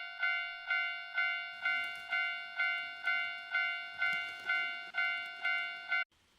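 Japanese level-crossing warning bell ringing about twice a second, the same pitched strike repeated evenly, then cutting off abruptly about six seconds in. A faint rattling runs underneath from about a second and a half in.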